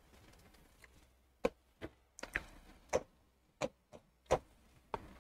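A series of about seven short, sharp taps or clicks, unevenly spaced roughly half a second to a second apart.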